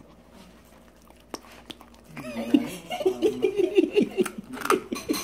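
Dachshund chewing on a crispy pork leg, with a couple of sharp clicks of teeth on bone in the first two seconds. From about two seconds in, a person laughs in quick rhythmic pulses, louder than the chewing.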